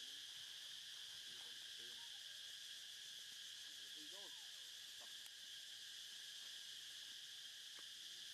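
Steady high-pitched drone of insects, unbroken throughout, with a few faint short pitched calls about two and four seconds in.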